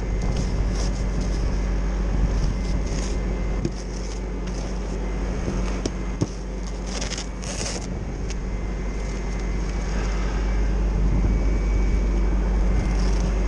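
A vehicle engine running steadily at an even speed, a constant low hum under a haze of noise, with a short burst of hiss about seven seconds in.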